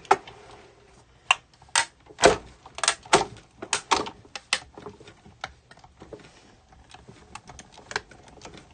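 Crafter's Edge Crossover 2 manual die-cutting machine being cranked to run a die and fabric through for cutting appliqué letters: a run of sharp, irregular clicks and knocks, loud and close together for the first four or five seconds, then fainter and sparser.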